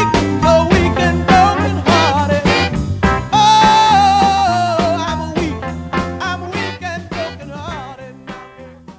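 Mid-1960s soul recording in its instrumental outro: full band with drums, bass and a bending lead melody line, the whole mix fading out steadily toward the end.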